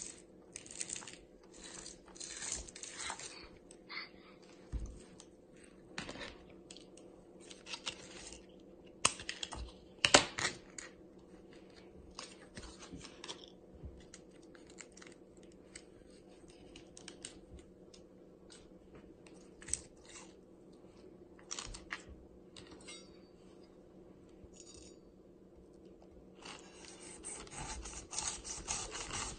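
Scattered rustles, taps and knocks of a whole pineapple being handled on a cutting board, with one loud knock about ten seconds in, over a faint steady hum. Near the end a knife starts sawing through the pineapple's tough rind with a continuous rasping.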